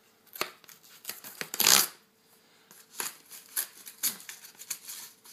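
A cardboard screen-protector package being handled and pulled open by hand: irregular crinkles, scrapes and snaps of card, with the longest and loudest rustle a little under two seconds in.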